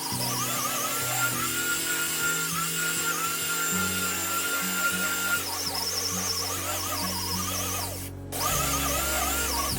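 Heavy-duty belt sander running with an 80-grit belt on wood, its motor whine dipping and recovering as it bears down, over background music with a stepping bass line. The sound cuts out briefly about eight seconds in.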